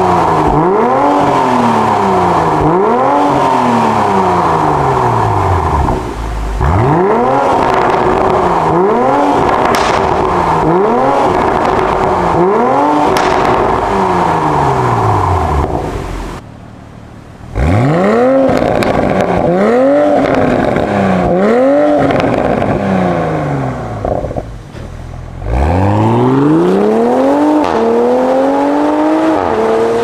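Toyota MK5 Supra's B58 turbocharged inline-six revved in a string of short blips, each rising and falling in pitch, through a Fi Exhaust valvetronic catback. For the first half the exhaust valves are closed (comfort mode); after a brief break about halfway they are open (sport mode). Near the end the revs are held higher, climbing slowly.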